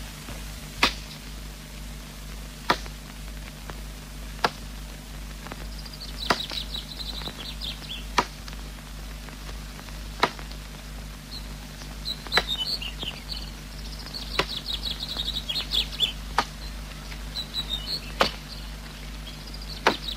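A digging tool striking the ground in a slow, steady rhythm, one sharp strike about every two seconds, as a well is dug by hand. Small birds chirp from about six seconds in, over a low steady hum from the old film soundtrack.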